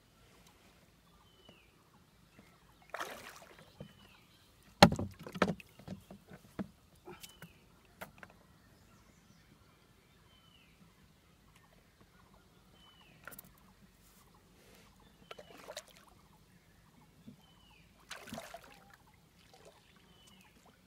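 Wooden boat: scattered knocks and bumps on the hull with brief sloshes of water. The loudest knock comes about five seconds in, and there are quiet spells between.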